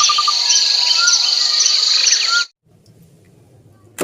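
Recorded nature ambience: a steady high insect trill with birds chirping over it, cutting off abruptly about two and a half seconds in, leaving only faint room noise.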